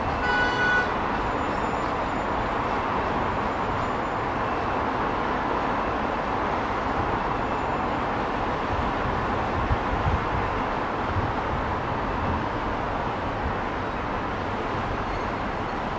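Steady city traffic noise, with a short horn blast about half a second in.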